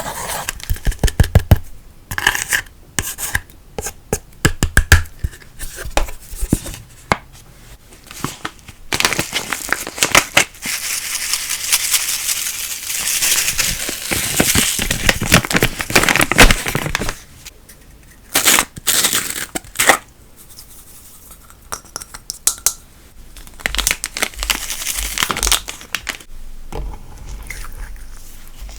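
Slime being kneaded, stretched and squished by hand, making quick sticky clicks and pops. Through the middle it turns to a dense, continuous crackling, then goes back to scattered pops.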